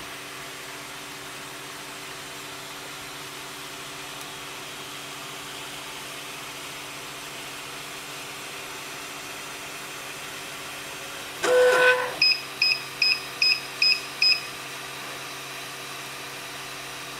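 3D printer running with a steady whir and hum from its fans and motors. Near the middle a short loud tone sounds, followed by six quick high-pitched electronic beeps.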